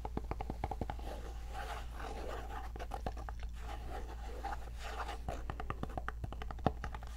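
Quick, irregular tapping and scratching on a scalp scrub's jar and packaging, the taps coming in fast clusters with scratchy rustling between them and one sharper tap near the end.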